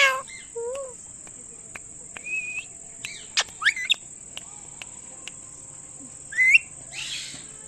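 Indian ringneck parakeet giving short chirps and whistled calls, spaced a second or so apart, some sweeping up or down in pitch, with a few sharp ticks between them. A steady high-pitched whine runs underneath throughout.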